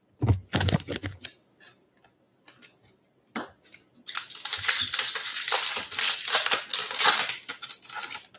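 A foil trading-card pack being handled and torn open: a few thumps and rustles in the first second or so, then about four seconds of loud crinkling and tearing of the wrapper.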